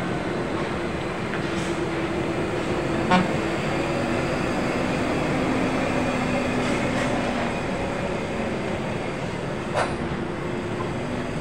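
Heavy diesel trucks crawling slowly round a steep hairpin bend, their engines droning steadily one after another. A short sharp sound cuts in about three seconds in and again near the end.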